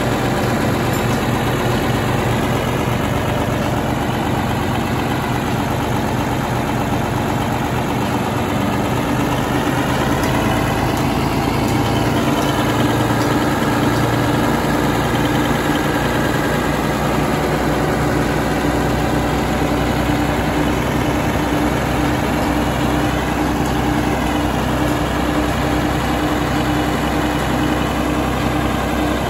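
1950 Peterbilt 350 truck's engine idling steadily at an even, unchanging speed.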